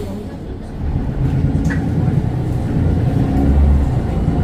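Mercedes-Benz Citaro bus's 6.4-litre OM906 six-cylinder diesel engine running, growing louder from about a second in as it works harder.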